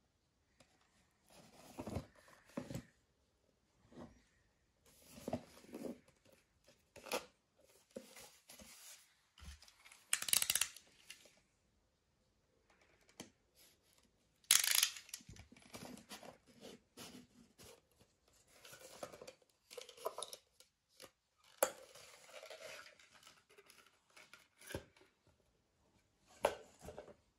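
A cardboard perfume tube being handled and opened: irregular scraping, rubbing and tearing noises as its seal sticker is slit with a pointed tool. Near the end the glass bottle is drawn out of its plastic insert.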